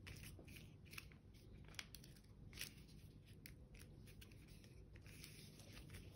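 A strip of white paper crinkling and crackling as it is folded and handled, faint, irregular little crackles.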